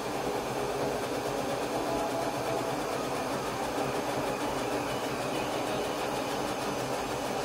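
Laser cutter running as it cuts, a steady machine whoosh of its fans, with short whining tones that come and go as the head moves.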